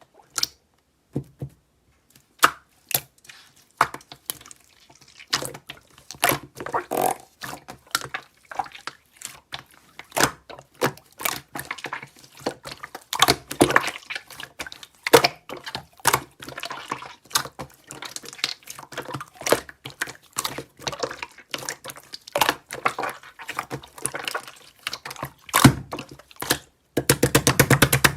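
Slime being pressed, poked and stretched by hand: irregular wet clicks and pops, with a fast run of crackling clicks near the end.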